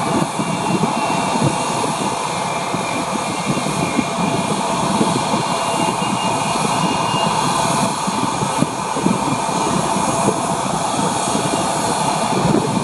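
Twin-engine jet airliner at takeoff thrust, lifting off and climbing away: a steady jet-engine rumble with a faint whine on top.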